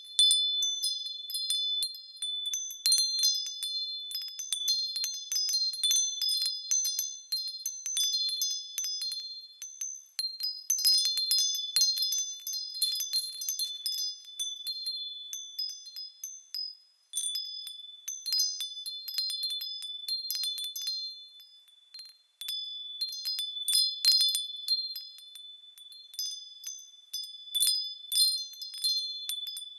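Small high-pitched metal bells swaying and ringing, many overlapping strikes and ringing tones, dying down briefly twice before picking up again.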